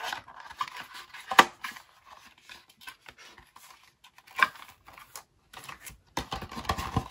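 Cardboard album box and its paper contents being handled and opened: rustling and scraping of card, with two sharp knocks, one about a second and a half in and another about four seconds in, and a denser stretch of sliding and rustling near the end as the contents come out.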